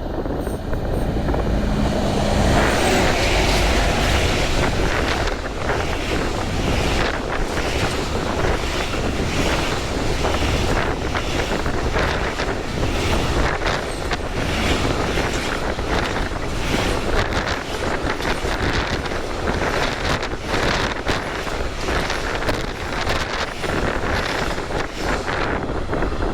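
Diesel-hauled car-shuttle train passing at speed, loudest a few seconds in, then a long run of car-carrying wagons with a dense, irregular clatter of wheels over the rails. Heavy wind buffets the microphone throughout.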